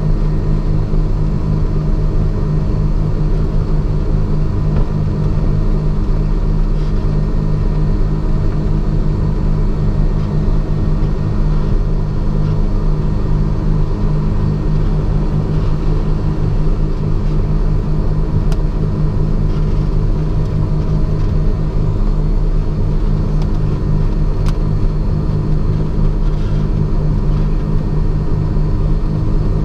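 Twin Continental 520 six-cylinder piston engines of a Cessna 414 Chancellor running together, a loud, steady, low drone with a deep rumble underneath.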